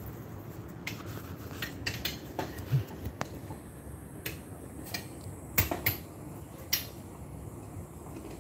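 Irregular sharp clicks and light clinks, about a dozen scattered over several seconds, the loudest cluster a little past halfway.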